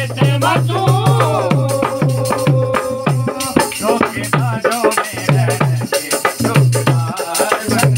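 A recorded Hindi/Urdu song plays, carried by a deep drum beat about three times a second with rattling percussion and a wavering melody line, including a note held for a couple of seconds near the start.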